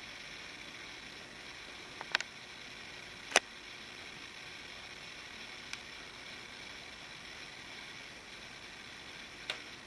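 Steady background hiss with a few sharp clicks: a quick double click about two seconds in, the loudest single click about three and a half seconds in, and fainter ones later.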